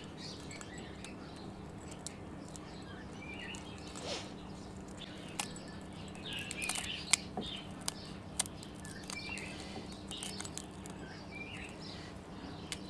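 Dried okra pods being pulled apart by hand, with a few sharp clicks as the seeds drop into a drinking glass; the clicks are loudest and closest together in the middle of the stretch. A small bird gives short chirps every couple of seconds over a steady low hum.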